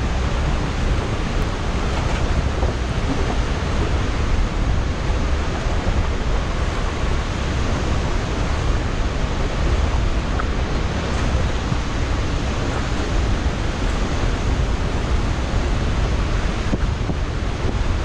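Steady rushing roar of a waterfall and its stream, with wind buffeting the microphone.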